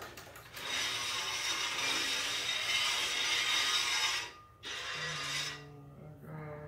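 A loud rattling, rasping noise lasting about three and a half seconds that stops suddenly, followed by a low steady hum.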